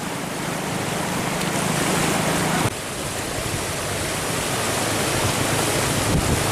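Whitewater rushing through a canoe slalom channel, a steady noise of churning water. The level drops abruptly about two and a half seconds in, then builds again.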